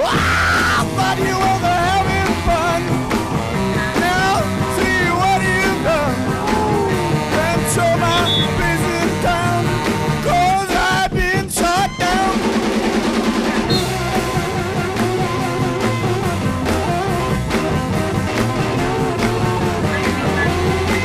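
Rock music with electric guitar and singing, loud and steady throughout.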